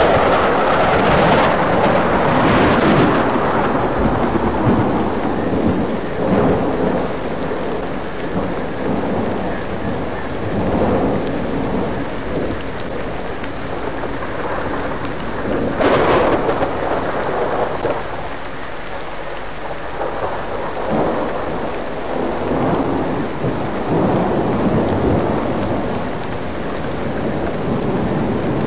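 Rain falling steadily during a thunderstorm, with thunder rumbling; the sound swells loudest at the start and again about halfway through.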